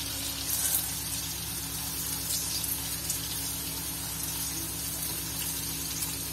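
Chopped okra sizzling steadily in hot oil in a kadhai as a silicone spatula stirs it, the okra almost fried crisp. A steady low hum runs underneath.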